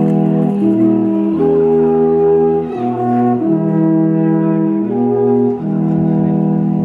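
Three alphorns played together, holding long notes with several pitches sounding at once, the chord changing every second or so.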